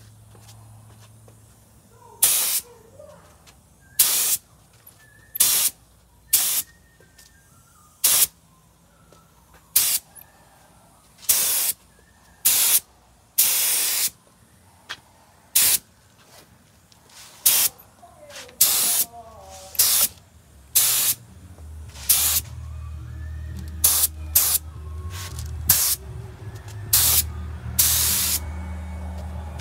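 Gravity-feed spray gun spraying epoxy primer in short hissing bursts, about twenty quick trigger pulls of a second or less each. A low steady hum comes in about two-thirds of the way through.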